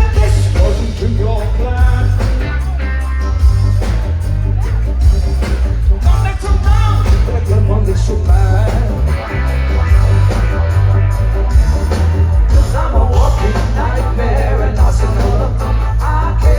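Live band playing a rock song through a loud PA, with a woman singing over a strong bass line.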